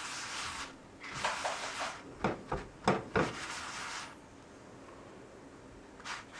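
A folded cloth rubbing and pressing a wheat paratha against a hot nonstick pan to make it puff, in bursts of scraping, with a few sharp knocks in the middle. It goes quieter for the last couple of seconds.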